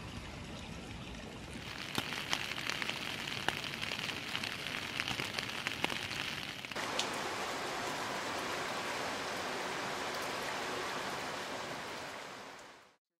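Rain falling steadily. For a few seconds individual drops tap sharply close by. About seven seconds in it changes to an even hiss of rain, which fades out near the end.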